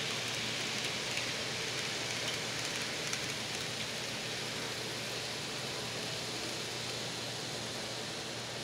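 Model freight cars' metal wheels rolling over the track: a steady rattling hiss with a few faint clicks. It eases off slightly as the end of the train passes.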